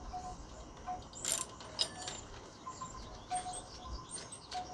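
Hand ratchet clicking with irregular metal clinks as a bolt is worked loose.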